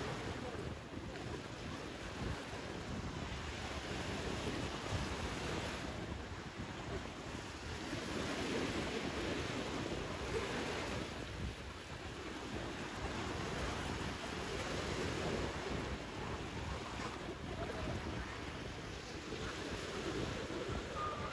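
Sea surf washing onto a beach, a steady rush that swells and eases every few seconds, with wind buffeting the microphone.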